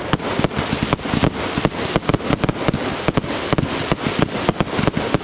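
Finale of a consumer fireworks show: many aerial fireworks going off at once in a rapid, continuous string of loud bangs, several a second, over dense crackling.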